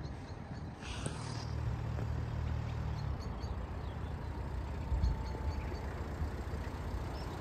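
Traffic on a nearby road: a car's engine hum and tyre rumble rising and passing, with a low surge about five seconds in.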